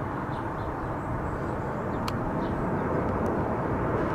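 Jet noise from an Airbus A350-941's Rolls-Royce Trent XWB engines as the airliner passes low on landing approach, a steady rumble growing gradually louder as it nears. Two brief faint clicks sound in the middle.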